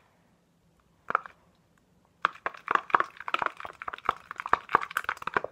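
A utensil beating raw egg and dish soap in a clear plastic container: quick, sharp clicking and tapping against the plastic. There is one short burst about a second in, then rapid, continuous beating from about two seconds in.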